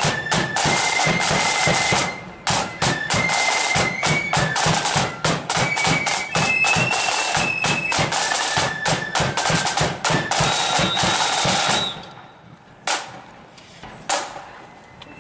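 A marching flute band plays a tune, with high flutes over snare side drums and a bass drum beat. The band stops about twelve seconds in, leaving a couple of single sharp hits.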